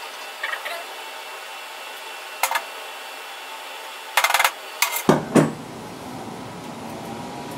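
Steel pliers clinking and scraping against a metal crucible while skimming dross off molten aluminium: a few sharp clicks, a dense clatter about four seconds in, then two loud knocks about five seconds in.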